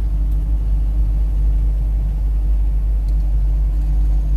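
Steady low rumble of road and engine noise inside a moving car's cabin, with a faint steady hum above it.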